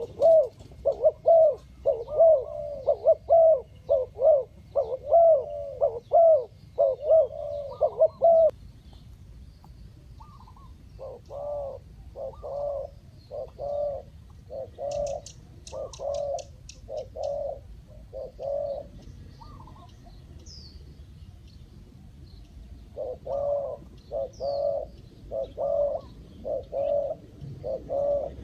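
Spotted dove cooing in repeated runs of short coos: a loud, quick series for the first third, then softer, more spaced coos, then louder again near the end. A brief rapid run of high chirps from another bird comes about halfway through.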